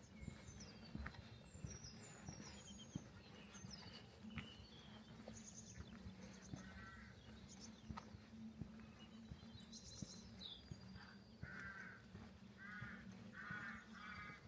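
Faint outdoor ambience of small birds chirping and twittering, over a steady low hum. In the last few seconds come four short, harsh calls, each about half a second long, from a crow-like bird or a farm animal.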